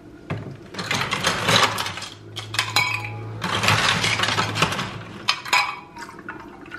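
Ice cubes scooped from a plastic tub and dropped into a glass mug, a run of rattling and clinking lasting about five seconds, followed near the end by milk starting to pour.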